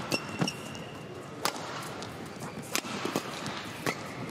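Badminton rally: rackets striking the shuttlecock with sharp cracks about once a second, about four hits. A shoe squeaks briefly on the court floor near the start.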